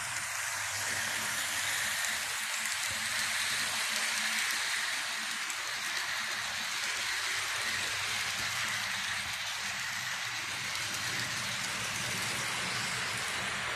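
Lima Re 4/4 model electric locomotive and its coaches running on H0-scale track: a steady rushing hiss of wheels rolling on the rails over a low hum, swelling a little a few seconds in as the train passes close.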